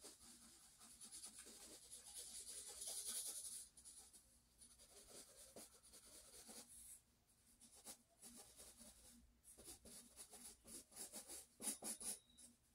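A pen scratching faintly on sketchbook paper in short drawing strokes, with a longer, louder stroke about two to four seconds in and a run of quick strokes near the end.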